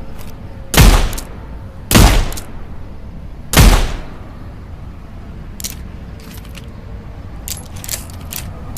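.38 snub-nose revolver firing three shots, about a second and a half apart, each ringing out briefly. Several light clicks follow in the second half.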